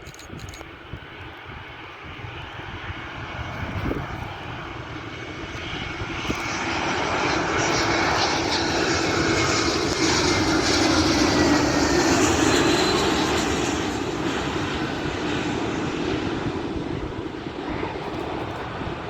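Jet airliner flying past on approach to land. The engine noise builds up, peaks a little past halfway, then fades, and a thin engine whine slides down in pitch as it passes.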